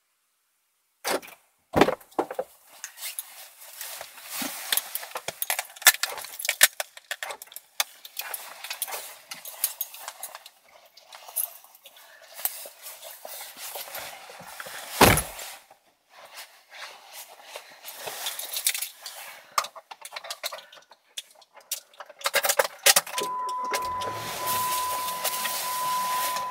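Close clicking and rustling of handling noise inside a parked car, with two louder thumps. About 23 seconds in, a low steady hum starts and the car's electronic chime beeps on and off over it.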